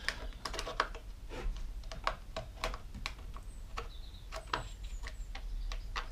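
Irregular small clicks and taps of a small screwdriver working against the plastic side cover and chain-brake parts of a Homelite chainsaw, prying a small part loose.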